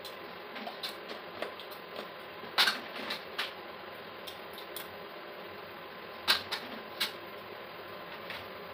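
Clicks and knocks of a plastic jar and its lid being handled, the sharpest about two and a half seconds in and again about six seconds in, over a steady background hiss.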